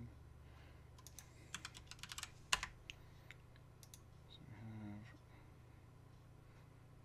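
Computer keyboard and mouse clicks: a scatter of light clicks over a couple of seconds with one sharper click in the middle.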